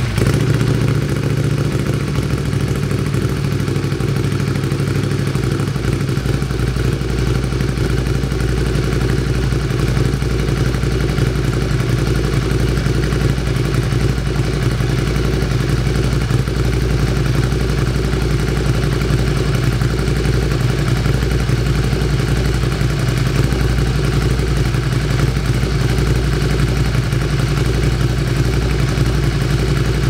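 Ducati Scrambler 803's air-cooled L-twin engine idling steadily through an Arrow Pro-Race twin slip-on silencer made for a Honda CB1000.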